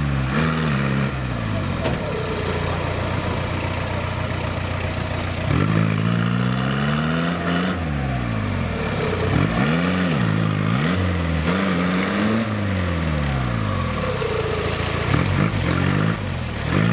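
A diesel LuAZ-969's 1.6-litre engine, bogged in marsh mud and blowing dark smoke, revs under load as the driver tries to power out. It holds a steady note for the first few seconds, then its revs rise and fall several times.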